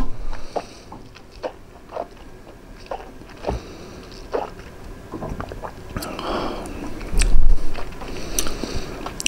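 Soft mouth clicks and lip smacks as a taster works a sip of whisky around the mouth, the short clicks spaced about half a second to a second apart. A breathy hiss about six seconds in is followed by a louder low thump about seven seconds in.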